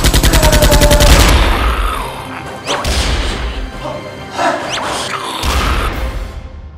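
Intro-style music with sound effects: a fast rattle of sharp clicks in the first second, then a series of crashing hits and sweeping whooshes.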